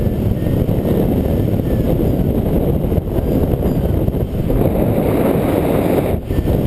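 Airflow rushing over the microphone of a camera mounted on a hang glider in flight: a steady, loud low rumble of wind buffeting, with one brief drop about six seconds in.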